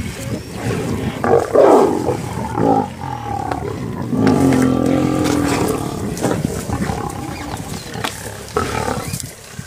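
Lions growling while competing over a zebra kill: a harsh outburst about a second in, then a long growl from about four seconds in.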